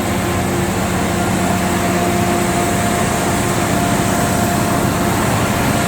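Tewatt 1200 diesel air compressor running steadily: a constant, dense engine drone with a steady hum.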